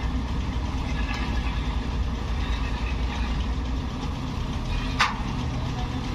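A heavy engine idling steadily in a low drone, with a single sharp click about five seconds in.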